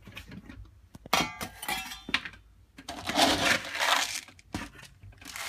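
Pet food bowl clattering with a clink of ringing, then a longer rattle of dry food going into it, with a few sharp clicks near the end.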